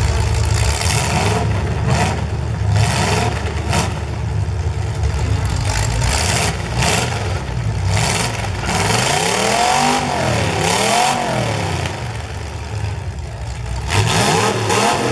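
Full-size demolition derby cars with engines revving hard, the pitch swinging up and down in repeated rev-ups, over sharp crunches of cars smashing into each other.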